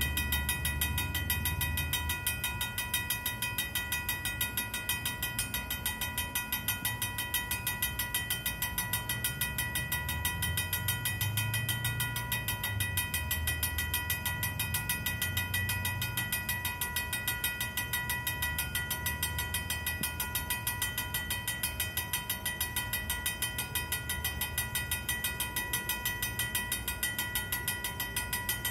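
An old mechanical railroad crossing bell ringing fast and without pause, its strokes even and ringing, over a low rumble that swells and fades.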